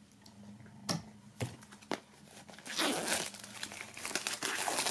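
Plastic shrink-wrap film being torn open and pulled off a cardboard CD/DVD slipcase: a few sharp snaps about one to two seconds in, then continuous crinkling as the film is peeled away and crumpled.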